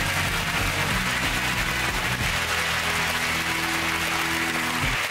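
Studio audience applauding over a short music cue of low held notes; the music cuts off near the end.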